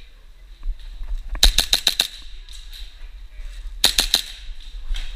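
Rapid airsoft pistol shots from an HPA-fed Tokyo Marui Hi-Capa, fired in two quick strings: about six sharp cracks around a second and a half in, then four more near four seconds. Fainter scattered pops from other airsoft guns and BB hits sound in between.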